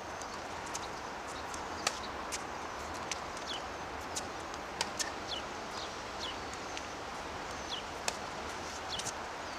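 Distant tennis ball strikes on racquets, sharp clicks every second or two, with birds chirping in short downward-sliding notes over a steady outdoor background noise.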